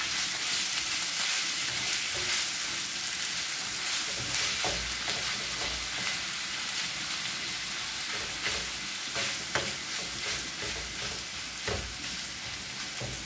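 Minced beef and onions sizzling in a frying pan over lowered heat, with a wooden spoon stirring and scraping through them and knocking on the pan a few times.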